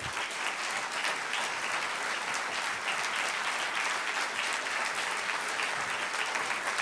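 Large audience applauding steadily, many hands clapping at once to welcome a speaker.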